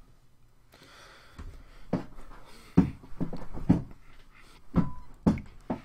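Handling noise: a series of short, light knocks and clicks, about eight spread over a few seconds, with some soft rustling in the first half.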